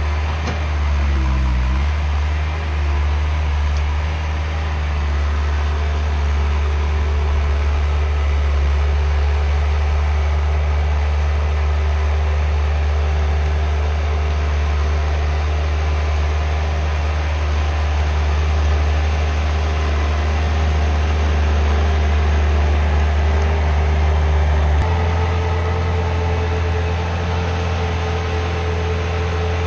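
Skid steer engine running steadily at working speed. It dips and recovers briefly about a second and a half in, and its tone shifts abruptly about 25 seconds in.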